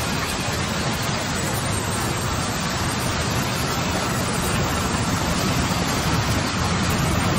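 Steady, dense machine noise of a sawmill band saw running and ripping lengthwise through a log, over a low hum from the mill's machinery.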